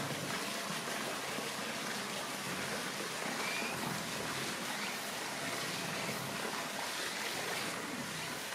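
Steady rushing and trickling of moving water in the pool where an Amur tiger is swimming.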